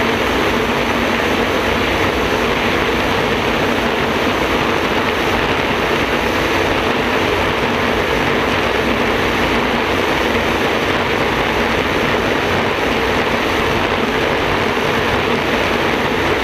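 Gas turbine engine of a racing jet boat running flat out, a loud, steady, unbroken noise, heard from the open cockpit with wind and water rushing past.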